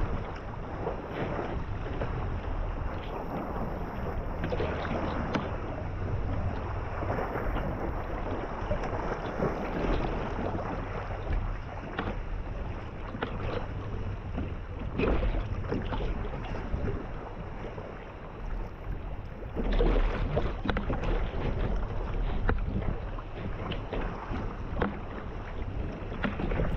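Choppy sea water splashing and slapping around a 17-foot P&H Scorpio sea kayak as it is paddled and braced in rough water, with wind rumbling on the microphone. Irregular louder splashes, the biggest about 15 and 20 seconds in.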